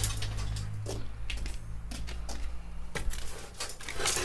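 Steel rebar bars and stirrups of a lintel reinforcement cage knocking and clinking against each other as they are handled, a few separate sharp clicks.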